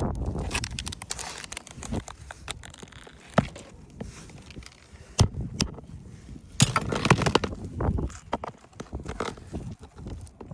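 Scraping and irregular sharp knocks of a thin-blade roofing scraper being worked under asphalt shingles to lift them and get at the nails.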